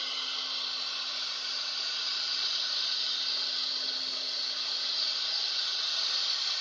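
Air-cooled spindle of a 4-axis wood CNC router running at high speed, a steady high-pitched whine and hiss with a low hum beneath.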